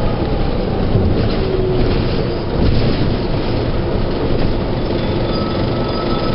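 1997 NovaBUS RTS transit bus with a Detroit Diesel Series 50 engine and Allison V731 transmission running, a steady rumble of engine and rolling noise. A faint high whine comes in about five seconds in.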